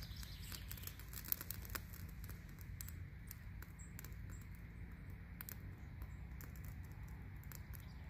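Water-soaked fire-starter fuzz burning after being lit, with scattered small crackles and a sharper pop about a second in, over a steady low rumble.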